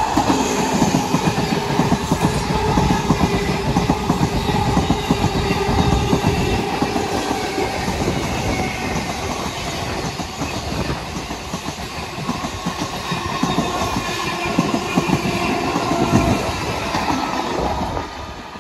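An ICF MEMU electric multiple-unit train passing close at speed: a steady rumble and rapid clatter of wheels over rail joints, with a steady tone running over it. The sound falls away near the end as the last car goes by.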